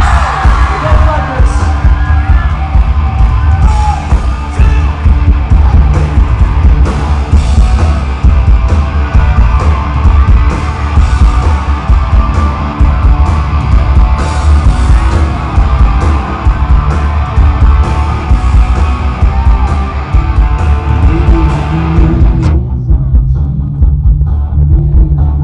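Live piano-driven rock band playing loud, with a singer over piano, electric guitar, bass and drums, heard bass-heavy from the crowd. About 22 seconds in the full sound drops away sharply, leaving a thinner low part.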